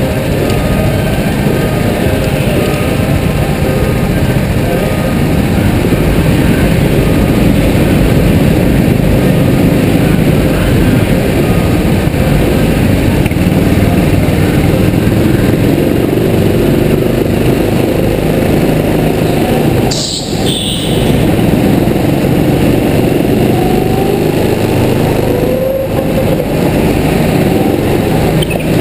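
Go-kart engines running loud and steady on the grid, then the kart's engine revving up with rising pitch as it pulls away near the end.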